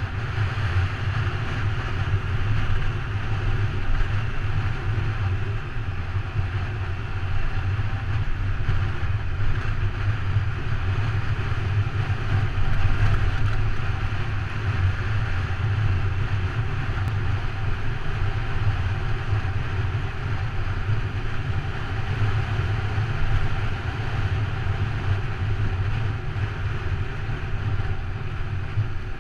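Motorcycle engine running at a steady cruising speed, with wind rushing over the helmet-mounted microphone.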